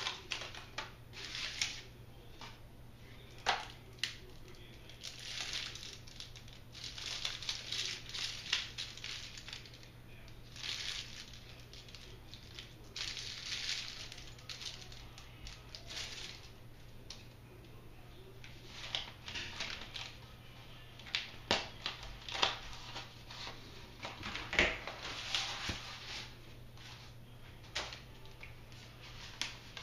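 Protective packing being pulled off a new bicycle frame: irregular rustling and crinkling of paper and plastic wrap, with a few sharp clicks and snaps along the way.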